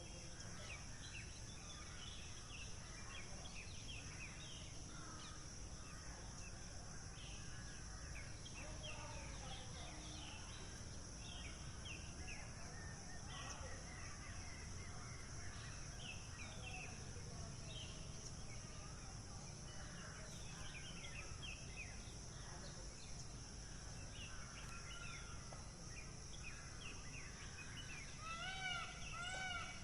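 Birds chirping and twittering over a steady high hiss. Near the end a larger bird gives a quick run of about six loud, honking calls.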